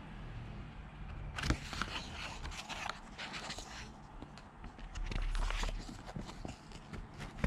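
Softcover picture book being opened and its pages turned by hand: a run of paper rustles and flaps, with a soft low bump of the book being handled about two-thirds of the way through.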